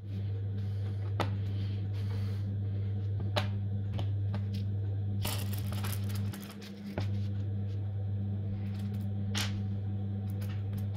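Steel bearing balls clicking and rattling as they are poured from a tube into the steel wire races of a 3D-printed bearing and pushed into place, with a longer rattle of pouring just past the middle. A steady low hum lies under it all.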